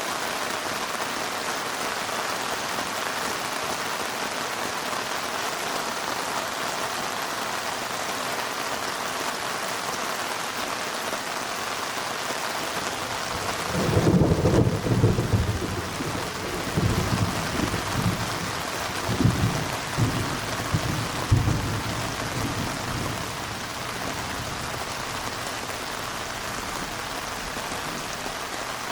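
Heavy rain falling steadily, with a rolling rumble of thunder that swells several times from about halfway through and dies away about three quarters of the way in.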